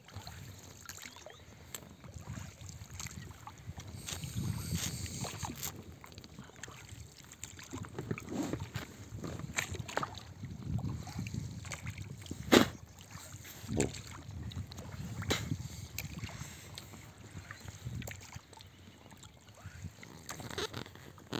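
Water sloshing against a small rowing boat in swells every couple of seconds, with scattered knocks, the sharpest about twelve seconds in.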